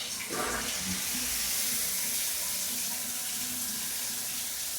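Water spraying from a shower head at high pressure, a steady hiss; the spray is way too much pressure for the owner, who is about to replace the head.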